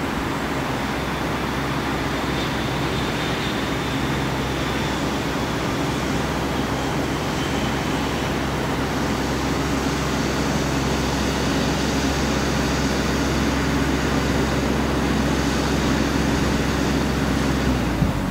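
Steady low mechanical rumble with a hiss over it, slowly growing louder, then cut off abruptly near the end.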